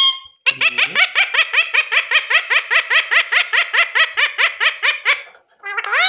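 Indian ringneck parakeet calling a fast run of short, repeated high notes, about eight a second, for some four and a half seconds: a laugh-like chatter.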